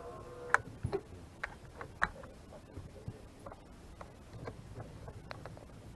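Irregularly spaced light clicks and taps, about a dozen, with the two sharpest about half a second and two seconds in.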